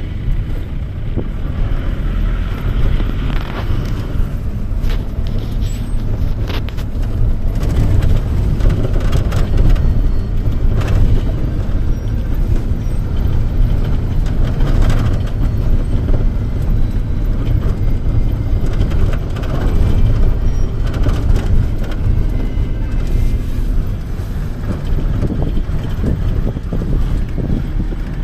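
Steady low rumble of a vehicle's engine and road noise heard from inside the cabin while driving, with occasional short knocks.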